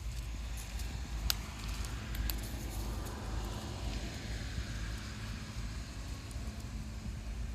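A road vehicle going past, its hiss swelling and then fading over a steady low rumble, with a sharp click about a second in.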